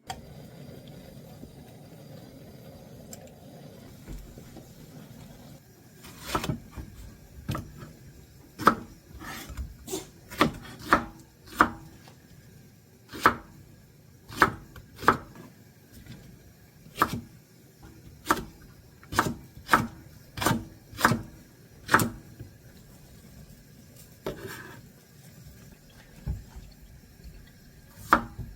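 A kitchen knife chopping on a wooden cutting board: single, separate strokes at an uneven pace of roughly one a second. They start after about six seconds of steady rubbing or scraping.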